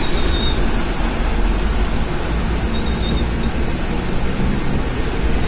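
A vehicle pushing through deep floodwater: a steady low rumble with the rush of churned water breaking alongside.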